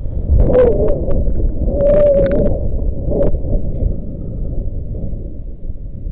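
Strong wind buffeting the microphone: a steady low rumble. Two short, higher-pitched sounds and a few sharp clicks come in the first three seconds.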